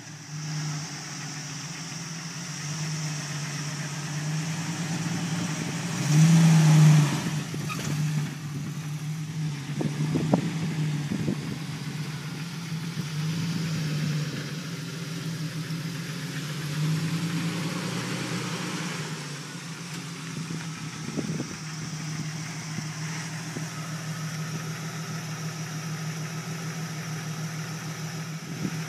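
Jeep Wrangler engine idling and pulling away at low speed, swelling loudest for about a second around six seconds in.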